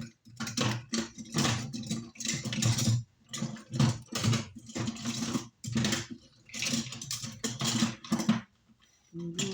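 Hand tools and small metal parts being rummaged and clattered about on a workbench in a search for a small screwdriver, in a run of irregular bursts with short pauses.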